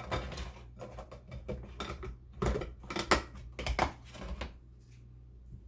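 Plastic snap-lock lid being fitted onto a glass food storage container and its locking tabs pressed shut: a run of clicks and clacks, the sharpest a little after three seconds in, then it goes quiet.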